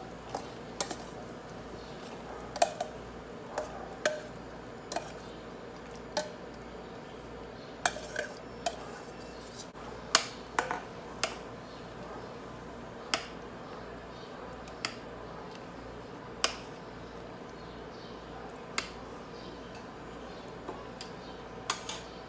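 A metal spoon clinking and scraping against stainless steel pans as beans are scraped from a saucepan into a soup pot and stirred in. The sharp clinks come at irregular intervals, about one a second, over a steady background hum.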